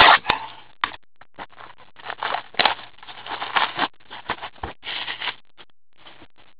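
Plastic shrink wrap crinkling and tearing as it is stripped off a sealed hockey card box, in irregular rustles that stop about five seconds in.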